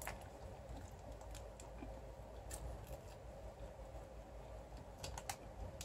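A person chewing a mouthful of burrito with lips closed: faint, scattered mouth clicks, a few sharper ones about two and a half and five seconds in, over a low steady room hum.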